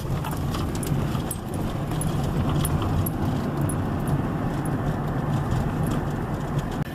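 Car engine and road noise heard from inside the cabin while driving: a steady low hum with tyre rumble.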